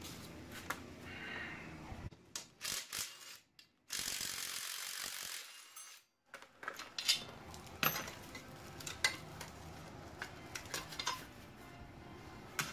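Steel bumper brackets and hand tools being handled: scattered light metal clicks and clanks, with a steady two-second whir of a cordless drill about four seconds in.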